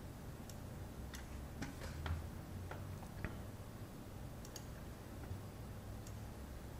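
Irregular clicks of a computer mouse and keyboard, a dozen or so, bunched in the first half, over a faint low steady hum.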